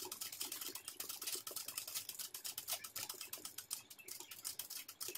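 Ordinary sewing machine stitching, its needle running in a fast, steady ticking as a stem is filled in with hoop-guided satin stitch embroidery.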